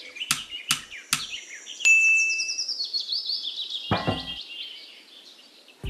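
Songbird chirping in fast descending trills, over and over. There are three sharp clicks in the first second or so, a short high ring about two seconds in, and a low thud about four seconds in.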